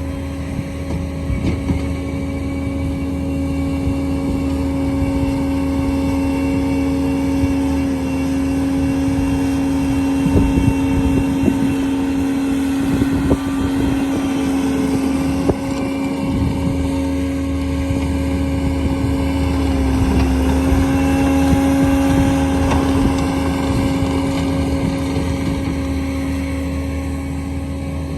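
Skid steer's diesel engine running steadily at high throttle, its pitch dipping briefly twice as it takes load, with scattered knocks and clanks in the middle.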